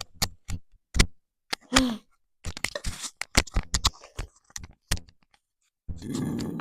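Close-miked mouth and microphone-handling noise: a run of sharp clicks and taps, with a brief pitched squeak about two seconds in and a short low, rough voiced sound near the end.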